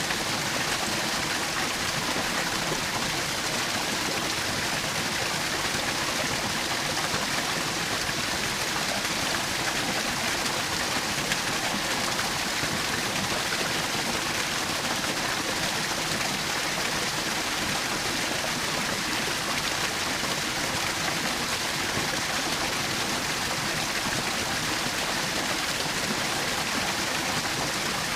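Small forest waterfall: a steady, even rush and splash of falling water.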